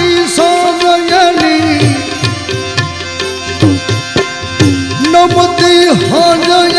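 Instrumental interlude of a Gujarati devotional bhajan: a wavering, sliding lead melody over a steady hand-drum rhythm, some of the low drum strokes bending in pitch.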